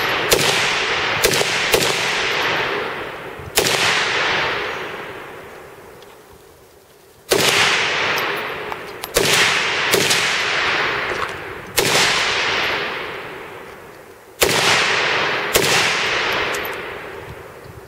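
RPK rifle fired in single shots, about ten at irregular intervals of roughly half a second to three and a half seconds. Each shot is followed by a long echo that dies away over a second or more.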